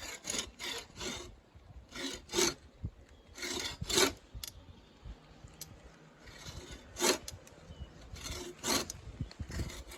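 Hand saw cutting into a sycamore trunk: slow, uneven rasping strokes through the wood, with a pause in the middle before the strokes resume.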